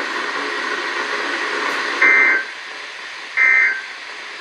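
Weather-radio hiss, then about two seconds in the first of two short, loud warbling data bursts of the Emergency Alert System end-of-message code, repeated about a second and a half later. They signal that the alert broadcast is over.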